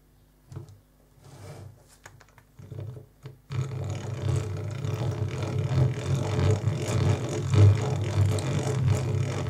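German-made two-speed geared hand crank drill from about 1948 boring into a wooden board. A few light handling knocks come first. About three and a half seconds in, a steady rough whirring of the turning gears and the bit cutting wood starts and keeps going.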